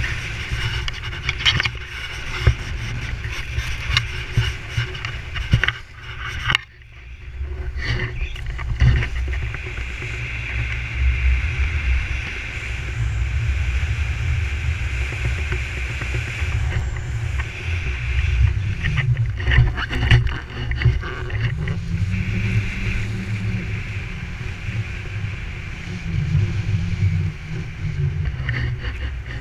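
Wind buffeting an action camera's microphone on a selfie stick during a downhill ski run, a heavy uneven rumble with the hiss of skis sliding on packed snow. The rush drops away briefly about six or seven seconds in.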